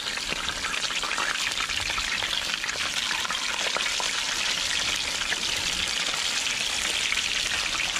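Seasoned fish frying in hot oil in a cast-iron pot: a steady, dense sizzle and crackle.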